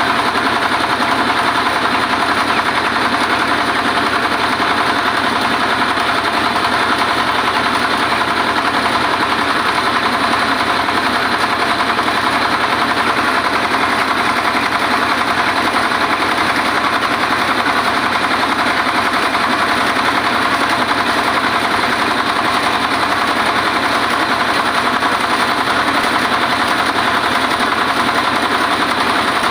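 Mobile rice-milling machine running steadily: its diesel engine and huller machinery make a loud, unchanging mechanical noise.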